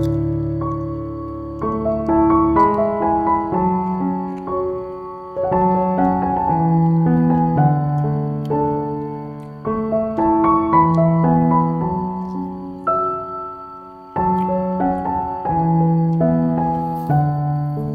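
Background solo piano music: a slow, gentle melody with chords struck every few seconds and left to ring out and fade.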